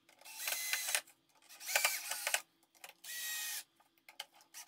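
Cordless drill-driver driving screws into a plywood jig. The motor runs in three short bursts, each under a second, with brief pauses between them.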